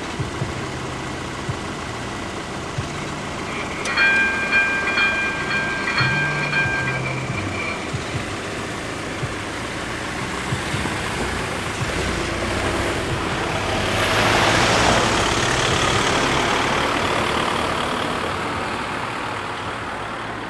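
AŽD 71 level crossing clearing after a train: a low motor hum as the barrier booms lift, with a few seconds of high steady ringing tones about four seconds in. Cars then drive over the crossing, loudest about fourteen seconds in.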